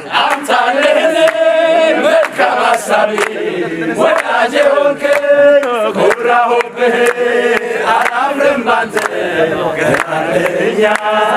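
A group of men singing a song together in a chant-like unison, with held, wavering notes, over rhythmic hand clapping.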